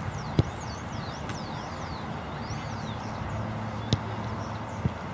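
Soccer ball kicked hard with a sharp thump about half a second in, then two fainter ball thumps about four and five seconds in. Birds chirp throughout over a low outdoor rumble.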